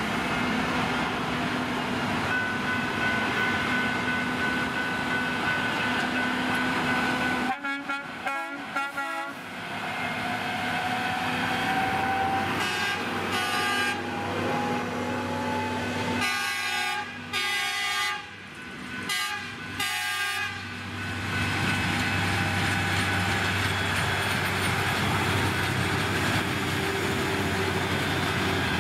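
Rail maintenance-of-way machines running on the track, their diesel engines droning steadily. Through the middle come several short horn blasts. Near the end a Plasser 09-16 Dyna-CAT tamper rolls past close by with its diesel engine running.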